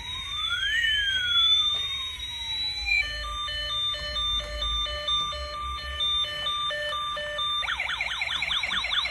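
Toy police car's electronic siren cycling through its sounds: a slow rising-and-falling sweep, then a repeating pattern of short stepped beeps from about three seconds in, switching to a fast warbling wail near the end.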